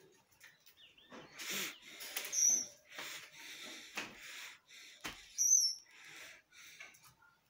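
Two short, high chirps from caged Gouldian finches, about two and a half and five and a half seconds in, among a run of short rustling noises that are the loudest sounds.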